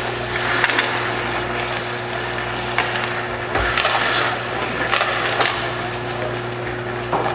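Ice hockey play: skate blades scraping the ice and several sharp clacks of sticks and puck, over a steady low hum.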